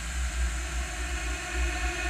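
A woman's coughing fit, time-stretched about 25 times slower, smeared into a steady droning wash. It has a pulsing low rumble and faint drawn-out held tones, with no separate coughs.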